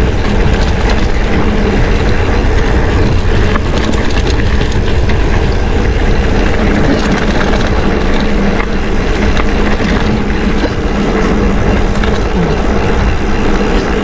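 Mountain bike rolling along a rough dirt road strewn with loose stones: a steady, loud rumble of tyres on dirt and gravel, with the bike rattling over the bumps.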